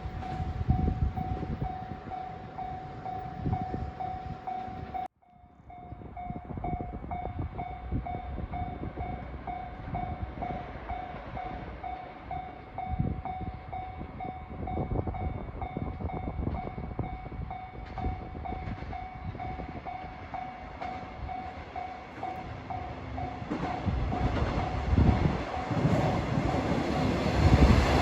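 Japanese level-crossing warning bell ringing in a steady, even repeat, with a brief drop-out about five seconds in. From about 24 s a KiHa 120 diesel railcar approaches, its rumble growing louder.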